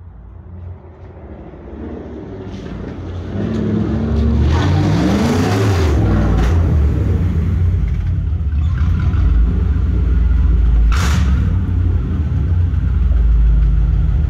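1991 Camaro RS's 305 TBI V8 on a straight-through stainless exhaust with no catalytic converter or silencers, building as it approaches and revving up in a rising climb, then running loud close by with a deep low note. A short sharp crack about three quarters of the way through.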